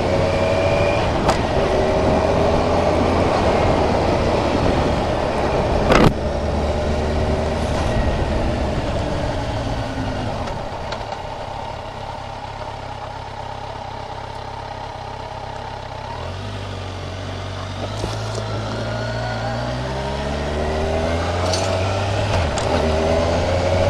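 Kawasaki Ninja 1000's inline-four engine heard from the saddle with wind noise. It pulls away with rising revs, eases off and runs quieter in the middle, then climbs in pitch again as it accelerates near the end. A single sharp knock about six seconds in.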